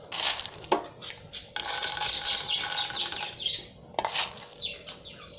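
Popcorn kernels sizzling in hot oil in an open pressure cooker, the sizzle rising and falling, with two sharp clicks, one under a second in and one about four seconds in. The kernels are heating and have not yet started to pop.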